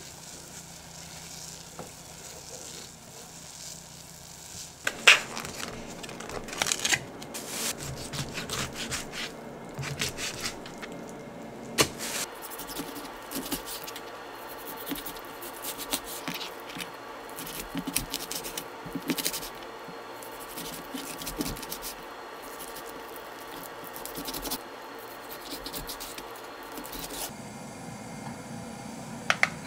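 A kitchen knife cutting raw chicken thigh on a plastic cutting board: irregular taps and scraping strokes of the blade from about five seconds in, after a low steady hum. A sharp click near the end.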